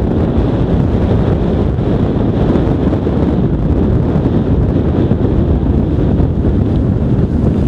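Strong storm wind buffeting the microphone: a steady, loud rush of noise, heaviest in the low end.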